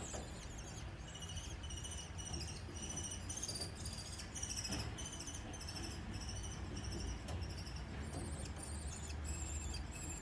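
Birds chirping in a fast, irregular series of short, high-pitched calls, several a second, many dropping in pitch, over a steady low rumble.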